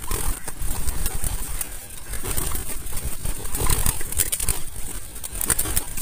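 Young spotted doves beating their wings as they flutter around a small wire-mesh cage, a fast run of flaps, rustles and light knocks against the mesh and wood, over a low rumble.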